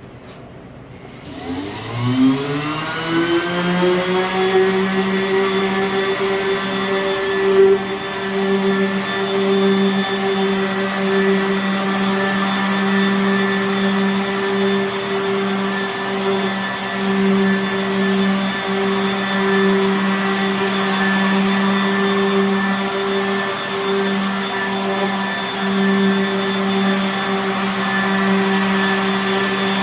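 Random orbital sander spinning up about a second and a half in, its pitch rising for about two seconds, then running steadily under load across walnut veneer during a cross-grain flattening pass.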